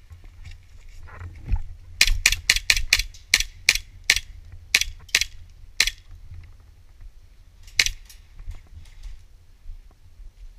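Airsoft rifle firing a quick, uneven string of about a dozen single shots, then two more near the end. The shots are sharp clicks, muffled by the closed waterproof camera housing.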